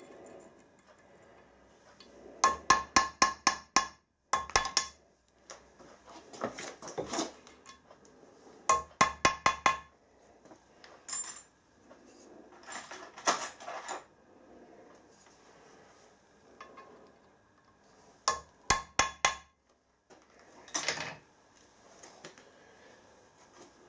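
Light hammer taps on steel in quick runs of about five taps a second, each tap ringing. There are four such runs, with quieter metallic clinks and scraping between them.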